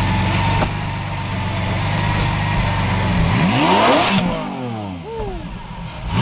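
Lamborghini Aventador's V12 engine idling steadily, then revved hard once about three and a half seconds in, the pitch climbing quickly and falling back as the revs drop; another rev begins right at the end.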